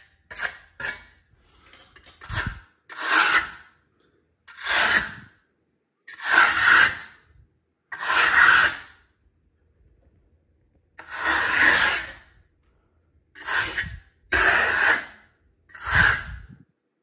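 A hand tool rubbed in short swipes across a marmorino lime plaster wall, about ten strokes each under a second long, spaced a second or two apart.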